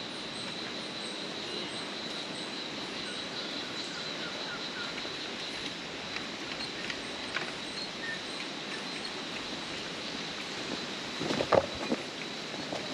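Rainforest ambience: a steady high insect drone with a few short bird chirps. Near the end come a few knocks of footsteps on the suspension bridge's steel grating.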